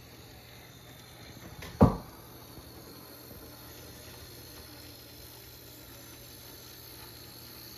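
A single short, loud thump about two seconds in, over a faint steady hiss.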